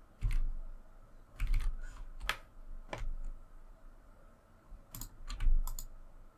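Scattered clicks of a computer mouse and keyboard, some in quick pairs, a few with a dull knock on the desk, as edges are being selected on a computer.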